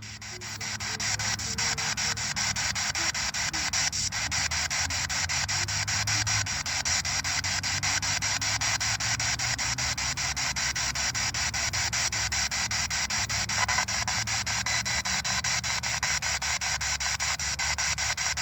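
Radio static chopped by rapid, evenly spaced clicks over a low steady hum: a spirit box sweeping through radio stations while answers are listened for.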